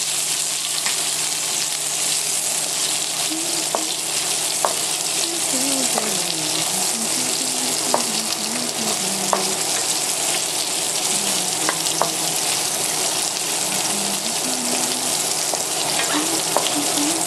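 Chinese broccoli stems and minced garlic sizzling in hot oil in a wok, stirred with a wooden spatula that knocks and scrapes against the pan every second or two.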